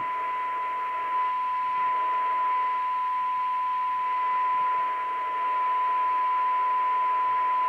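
Audioline PT340 CB radio's speaker putting out a steady test tone over a faint hiss while it receives a signal generator's modulated carrier. Its coil L5 is being peaked in the receive alignment, and the tone gets slightly louder about a second in and again near six seconds.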